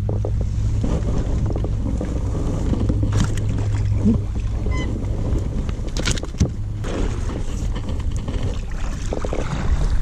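Wind rumbling steadily on the microphone, with sharp knocks and clicks around the middle as a small bass is swung out of the water into a fishing kayak.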